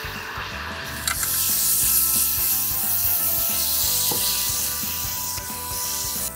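Seasoned NY strip steak sizzling steadily on the hot, oiled grate of an electric grill, the sizzle starting about a second in as the steak goes down.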